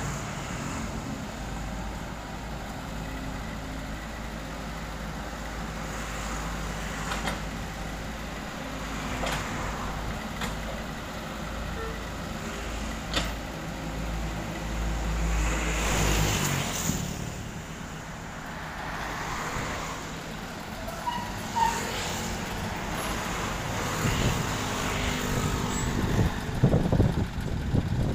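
Komatsu PC78US mini excavator's diesel engine and hydraulics running steadily while loading a dump truck, with a few sharp knocks of rock and bucket. The low engine hum drops away about sixteen seconds in, and rougher rushing bursts come near the end.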